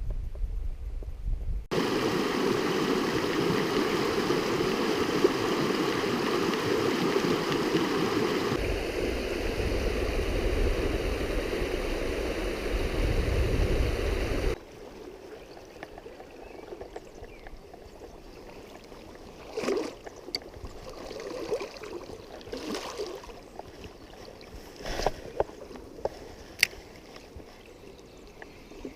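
Stream water running loud and steady over a shallow run, changing abruptly twice. Then it drops to a much fainter flow, with a handful of short knocks and clicks in the second half.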